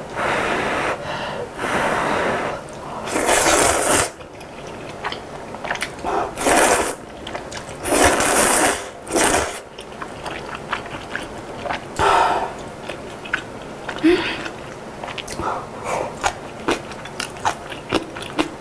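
Close-up slurping of chicken kalguksu noodles and broth in several long drawn-in bursts over the first ten seconds, with one more slurp about twelve seconds in. After that comes chewing, with many small wet mouth clicks.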